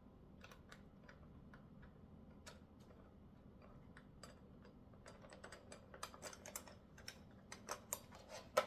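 Light metal clicks and taps of small screws being worked into a bike repair stand's tool tray with a hand tool. The clicks are sparse at first and come faster over the last few seconds, with one sharper click near the end.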